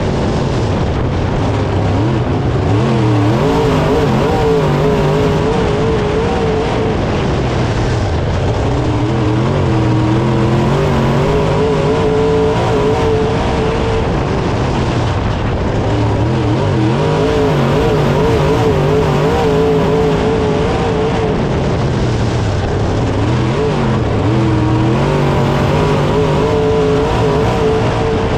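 Dirt late model's V8 engine at racing speed, heard from inside the car, its note dropping and climbing back every several seconds as the car laps the dirt oval.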